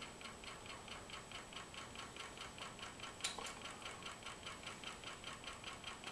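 Small homemade copper-top Stirling engine running on a low burner as it warms up, its crankshaft and connecting rods ticking lightly and evenly about five times a second. One sharper click comes about three seconds in.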